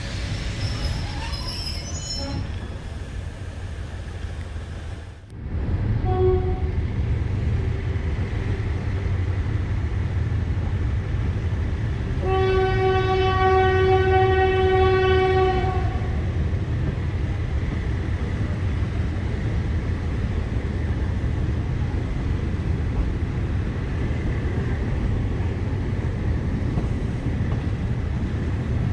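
Thai diesel passenger train running with a steady low rumble, sounding its horn: a short toot about six seconds in, then one long blast of about three and a half seconds near the middle. The sound cuts out briefly just before the first toot.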